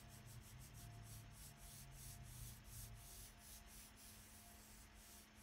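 Faint rubbing of a fingertip blending chalk pastel on paper, in quick repeated strokes several a second, over a faint steady hum.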